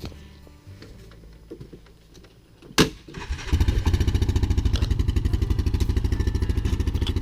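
A sharp knock, then a motor vehicle engine starts about three and a half seconds in and settles into a steady, rapidly pulsing idle.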